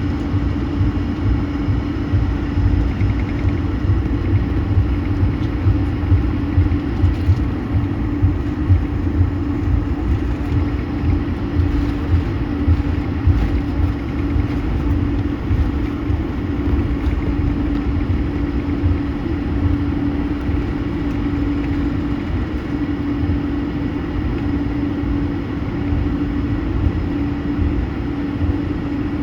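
Airbus A220 cabin noise: its jet engines give a steady hum over a low rumble, with small uneven jolts in the first half.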